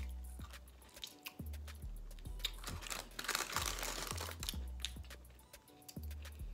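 Background music with a deep, repeating bass and regular ticks. From about three seconds in, takeout paper crinkles for a second or so as a hand digs into the box.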